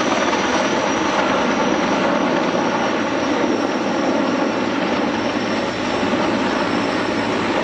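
Aircraft flying overhead: loud, steady engine noise that holds level throughout.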